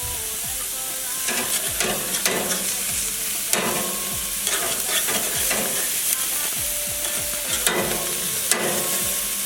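Seasoned beef sizzling on a hot barbecue grill, a steady hiss with repeated clicks and scrapes as the pieces are laid down and moved around.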